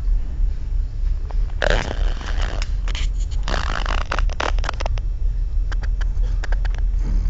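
Snoring: rough, throaty snoring breaths, the strongest about one and a half and three and a half seconds in, followed by a run of short clicks and smacks. A steady low rumble runs underneath.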